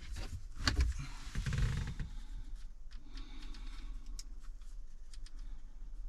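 Plastic dash trim being handled and pressed during a test fit: a few sharp clicks and knocks in the first two seconds, the loudest a little under a second in, then faint scattered clicks.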